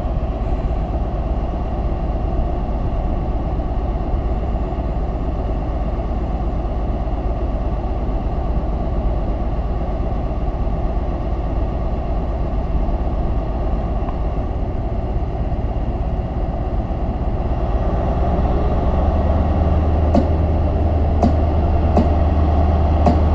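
Class 43 HST power car's diesel engine running as the train comes slowly closer, growing louder, with a deeper hum building over the last few seconds. A few sharp clicks come near the end.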